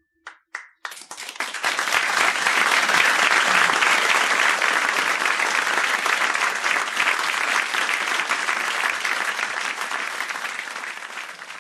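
Audience applauding as the song ends: a few scattered claps, then full, steady applause that slowly fades toward the end.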